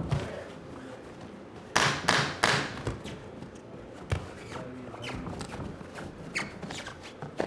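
Punches landing in a quick flurry of four or five sharp hits about two seconds in, followed by a few single hits and shuffling footwork on the ring canvas.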